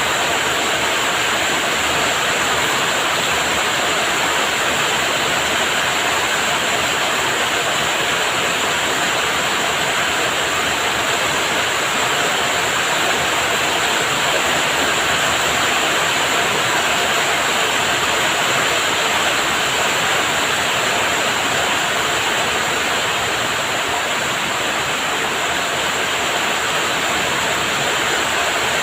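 Heavy rain falling steadily: a dense, even hiss of water with no breaks.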